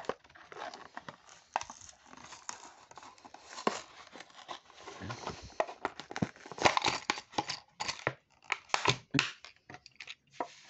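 A plastic-and-cardboard blister pack being torn open and crinkled by hand: an irregular run of crackles and short tearing strokes, busiest about two-thirds of the way through.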